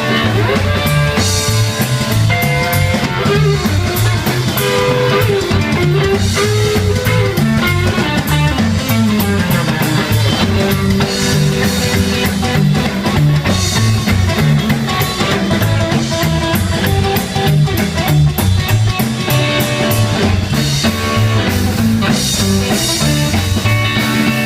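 Live rock band playing an instrumental passage: a guitar lead over a steady bass line and drum kit with cymbals.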